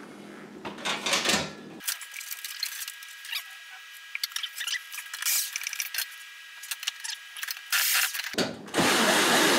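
Metal clicks, clinks and rattles of screws and a steel wall-mounting bracket being worked loose by hand. Near the end a louder steady rushing noise sets in.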